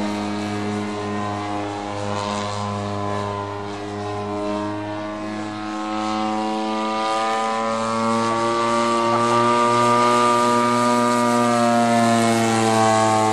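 Engine and propeller of a radio-controlled Curtiss Jenny model biplane in flight: a steady droning note whose pitch sags a little mid-way, then climbs as the plane grows louder on a close pass, dropping again near the end.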